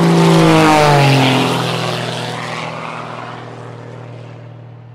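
Aircraft fly-by sound effect: an engine drone swells to its loudest about half a second in, drops in pitch as it passes, then fades away.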